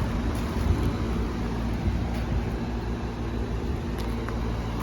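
Outdoor heat pump condensing unit running: a steady compressor hum with fan noise.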